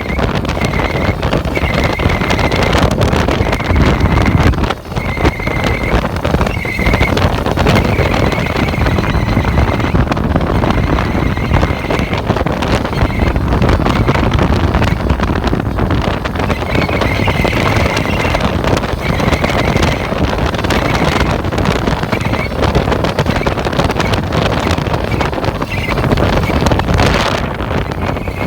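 A vehicle's engine drive belt squealing: a high, thin whistle that comes and goes every second or two over steady engine and road noise. It is the squeal of a slipping belt.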